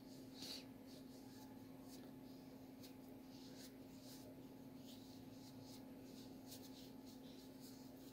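Near silence: faint soft rubbing of a cotton pad wiped over the skin of the face and neck in scattered light strokes, over a steady low hum.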